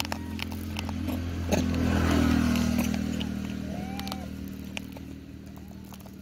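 A motor engine hums steadily nearby, growing louder about two seconds in and then easing off. A few short, arching chirpy calls sound over it.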